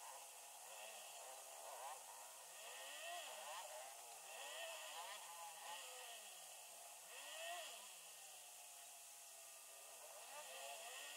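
Faint engine sound inside a moving car's cabin, its pitch rising and falling again and again.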